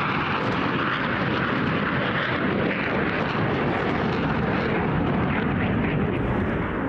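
Steady jet-engine roar of two fighter jets, an F-15 and a Eurofighter Typhoon, flying past in a display.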